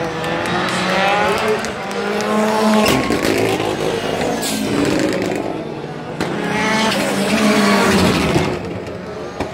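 Rallycross Supercars accelerating hard down the straight, engines revving up through the gears: the pitch rises, drops at each shift and climbs again several times, with sharp cracks at some of the shifts.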